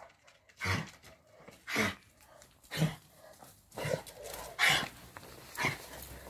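A dog barking in single barks, about one a second, six or seven in all.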